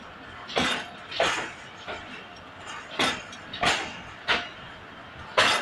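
Wheels of a slowly moving passenger train clacking over rail joints: sharp metallic clacks in twos and threes, roughly two-thirds of a second apart, as the coaches pull out of the station.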